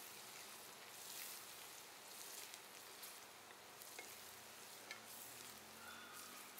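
Faint sizzling of sliced onions and spices frying in hot oil in a steel pot, stirred with a wooden spatula, with a few light knocks of the spatula against the pot.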